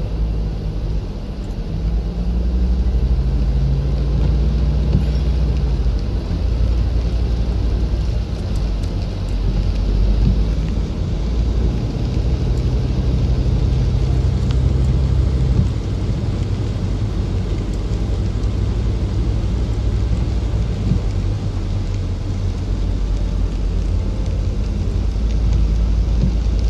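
Hummer H3 driving through flooded streets in the rain, heard from the cabin: a steady low engine drone under the hiss and wash of tyres through standing water.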